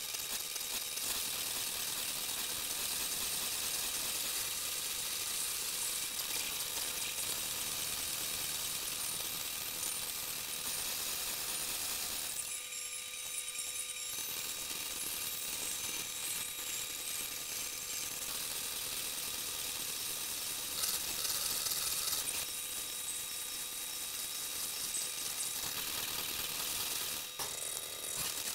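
Steady hiss, strongest in the high range, with a few faint steady whining tones running under it. It thins briefly about halfway through.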